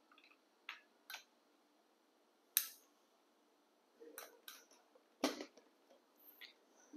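Several separate sharp plastic clicks and knocks from handling a black trim-line analog desk telephone: the handset cord's modular plug is pushed into its jack, and the phone body is laid down on the desk about five seconds in.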